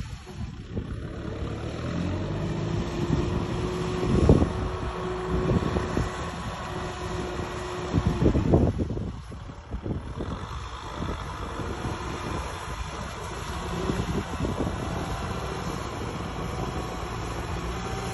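Heavy machinery's diesel engine running, with a steady whine held for several seconds and a few loud clanks, the loudest about four and eight and a half seconds in.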